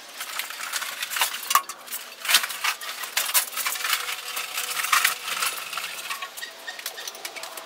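Irregular light clicks and metallic clinks, a few a second, with some louder ones about a third and two-thirds of the way in.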